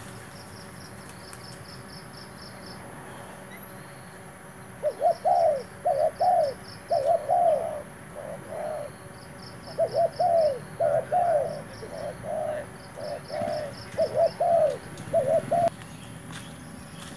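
Spotted dove cooing: a long run of short arched coos in quick groups, starting about five seconds in and stopping shortly before the end.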